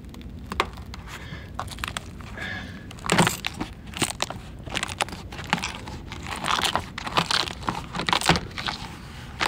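Rubber door-sill weatherstripping on a 1995 GMC Suburban being peeled up by hand from the door opening: irregular rustling and scraping with sharp clicks and pops, the loudest about three seconds in.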